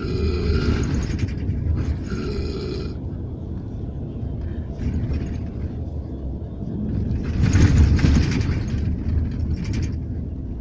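A man snoring loudly in his sleep: two long rasping snores in the first three seconds and a louder, rougher one about eight seconds in. Beneath them runs the low, steady rumble of the bus engine.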